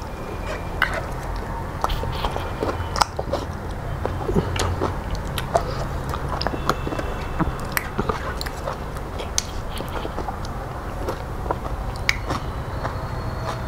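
Close-miked eating: wet mouth clicks and smacks of chewing, with fingers squishing and scraping food across a stainless steel plate. A steady low hum runs underneath.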